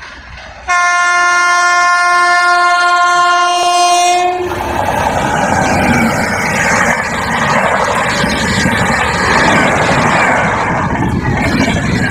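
Locomotive horn of an Indian Railways express train (the Shri Shakti Superfast Express) sounding one long, steady blast of about three and a half seconds as it approaches. Then the coaches pass close by with a loud, continuous rush and rattle of wheels on the rails.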